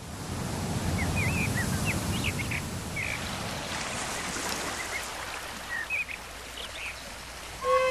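Outdoor nature ambience: a steady rushing noise that swells in over the first second, with short bird calls scattered through it. A flute starts playing just before the end.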